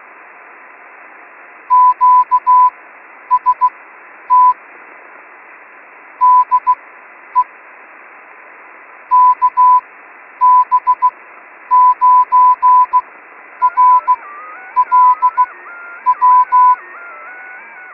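Morse code keyed as a tone of about 1 kHz over steady, narrow-band radio static, in short and long beeps grouped like letters. In the last few seconds, several extra tones step up and down in pitch beneath and above the code.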